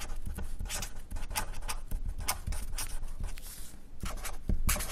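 Marker pen writing on a white surface: a quick run of short scratchy strokes, the loudest near the end.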